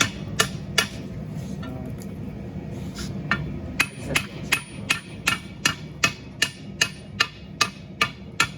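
Hammer blows on a hot steel bar being forged, sharp ringing strikes about two or three a second, with a break of about two seconds near the start. A steady low hum runs underneath.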